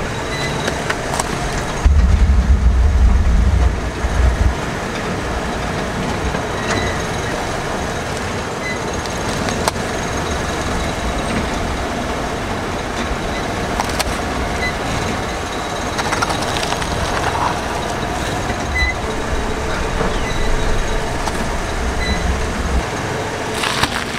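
A car rolling slowly on concrete, its engine and tyres making a steady rumble, with a louder deep rumble about two to four seconds in.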